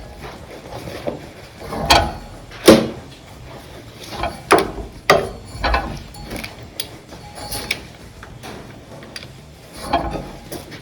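Hand tools working the cylinder head bolts out of a John Deere 2630 engine: ratchet clicking with irregular sharp metal clanks and knocks, the loudest coming a little under three seconds in.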